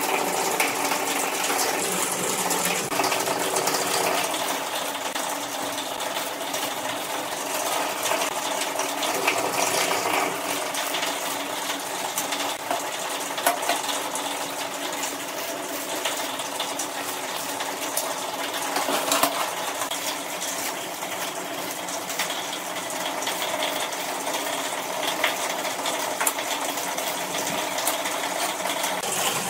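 Square steel tubes clinking and sliding on a steel workbench as they are laid out and aligned, with a few sharp metallic clicks. A steady rushing noise with a low hum runs underneath throughout and is the loudest thing.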